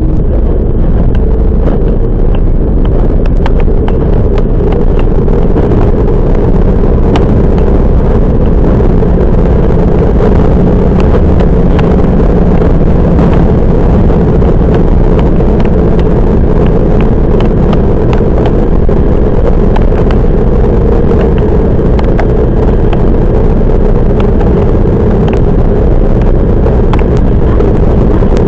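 Running noise of a Toyama Chiho Railway 10030 series electric train heard from inside the car: a steady loud rumble of wheels on rail with scattered sharp clicks and knocks.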